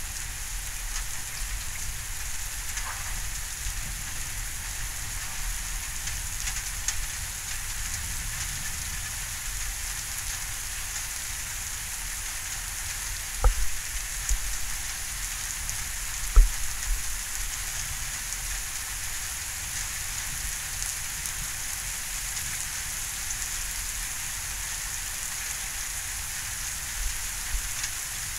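Heavy thunderstorm rain falling steadily, an even hiss, with two sharp taps about halfway through, some three seconds apart.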